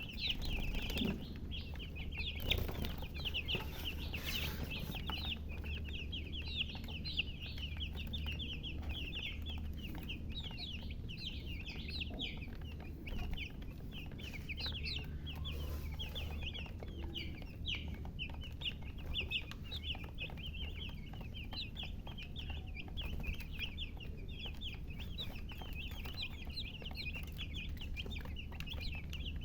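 A brood of baby chicks peeping continuously: many short, high chirps overlapping several times a second, over a steady low hum.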